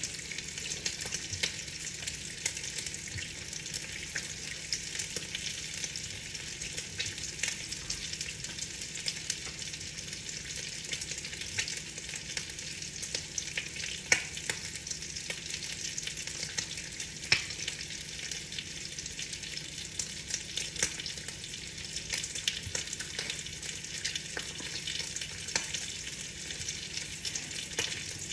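Steady rain on a window pane: a dense hiss of fine crackle from countless droplets, with the odd louder single drop tapping on the glass.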